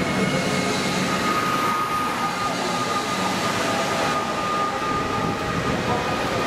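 ÖBB Railjet train with its red ÖBB electric locomotive running past and away, a steady rolling rumble of wheels on rails. A steady high whine joins it about a second in.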